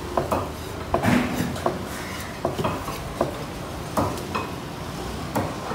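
A large fish knife knocking and scraping on an Asian sea bass and a wooden chopping block. The knocks come at irregular intervals, about a dozen of them, some followed by short scrapes.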